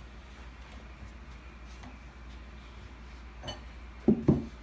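Light clinks of steel open-end wrenches against the Wiwa pump's lower piston rod and cup seal as the seal is unscrewed, then two dull knocks in quick succession near the end.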